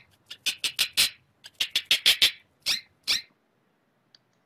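Hamster squeaking: a rapid string of short, sharp squeaks in quick runs, stopping about three seconds in.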